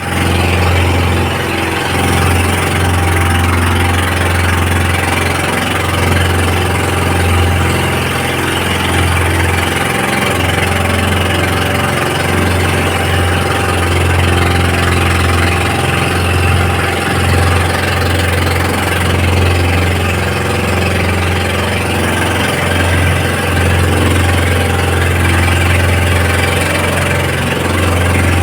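Boat engine running steadily at an even pitch, with a steady hiss over it.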